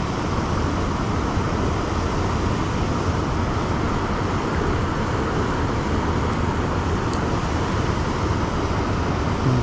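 Steady rush of river water pouring over a low weir and through rocky shallows.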